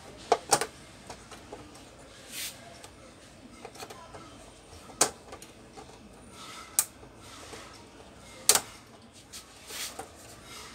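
A handful of sharp clicks and snaps, a few seconds apart, as the frame of an LED TV panel is pried loose with a thin tool; the loudest comes about three-quarters of the way through.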